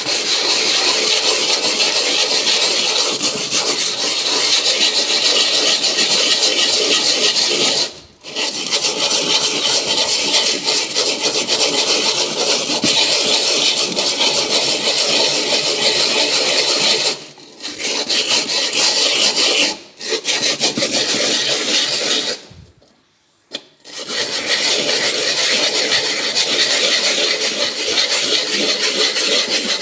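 Hacksaw blade bent into a ring, its teeth scraping thick burnt-on crust off a frying pan: a continuous harsh rasping scrape that stops briefly four times.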